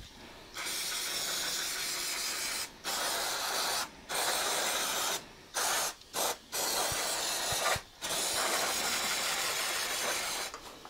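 Aerosol cleaner spray can hissing in about seven bursts, most of one to two seconds, a few very short, with brief pauses between, as it is sprayed onto a greasy lawnmower engine.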